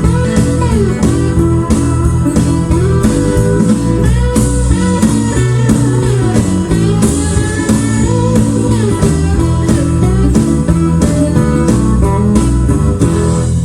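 Blues guitar music with slide guitar, bass and a steady beat, played through a 1970s stereo receiver and speakers in a sound test. The music stops at the very end, with a short fade.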